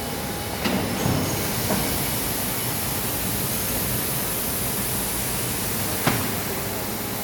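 Sack filling machine running with a steady mechanical noise. A high hiss sets in about a second in and fades near the end, with a few sharp clacks, the loudest about six seconds in.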